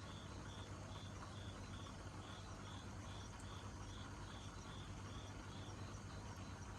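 A cricket chirping in a steady rhythm, about two short high chirps a second, over a low steady hum.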